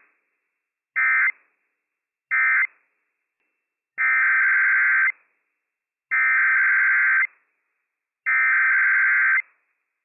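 Emergency Alert System SAME digital data bursts on NOAA Weather Radio. Two short, shrill end-of-message bursts about a second apart close one Required Weekly Test. After a pause, three longer bursts of about a second each follow, two seconds apart: the header that opens the next test.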